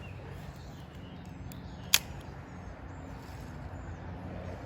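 Quiet outdoor background with a steady low hum and a few faint bird chirps, broken by one sharp click about two seconds in.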